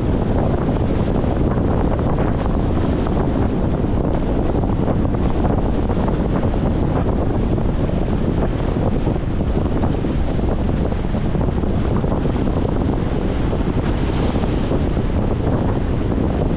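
Strong wind buffeting the microphone in a steady low rumble, over choppy water lapping and splashing against a concrete shore.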